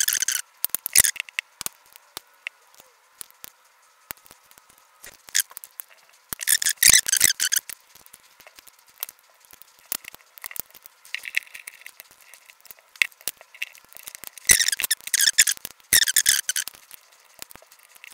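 Plastic power-bank case being pried open with a metal pry tool: scratchy squeaking and creaking in several spells of a second or two, with sharp clicks as the snap-fit clips pop loose.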